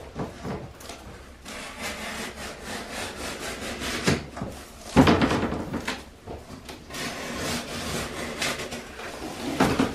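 A large cardboard box being cut and pulled apart, with steady scraping and rustling of the cardboard and a sharp knock about halfway through and another near the end.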